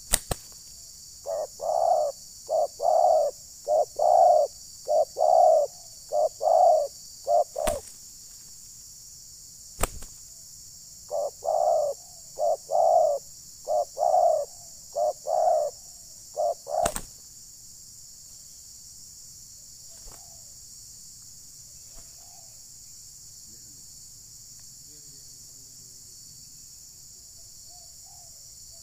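Spotted doves cooing: two runs of repeated low coo notes, each lasting about six seconds, with a few sharp clicks between them. A steady high hiss runs throughout, and faint chirps follow later on.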